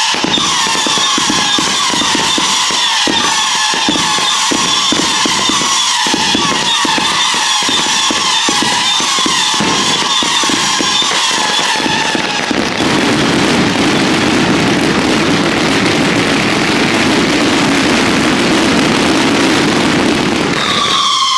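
Daytime fireworks barrage: whistling fireworks give sliding, falling whistle tones over rapid crackling bangs. About twelve seconds in, the whistles and bangs give way to a steady rushing roar, and a new falling whistle starts at the very end.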